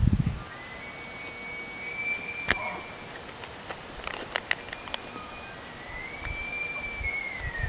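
Bull elk bugling in the rut: two long, high whistled calls, the second gliding down at its end, with a few sharp clicks between them.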